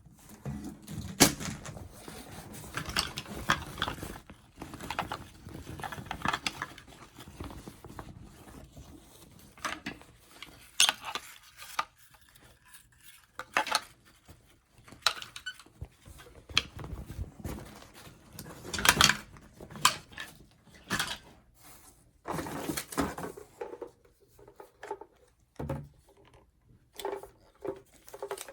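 Irregular clicks, knocks and rustling as the plastic parts and packaging of a carpet cleaner are handled during unboxing, with a louder cluster of knocks about 19 seconds in.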